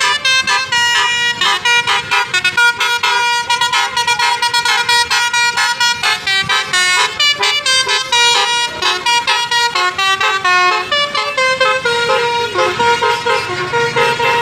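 Basuri 'telolet' multi-tone bus horn playing a fast melody of short, changing horn notes. A lower held note grows stronger near the end.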